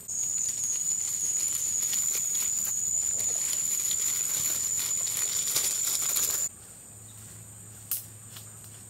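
Loud, high, steady insect buzz, cicada-like, that cuts off suddenly about six and a half seconds in. A single sharp click follows about a second later.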